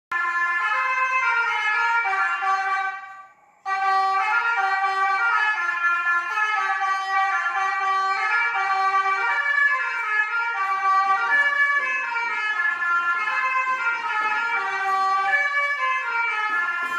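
Basuri 'telolet' multi-tone bus horn playing a melody in steady, stepped notes. It fades out about three seconds in and starts again a moment later.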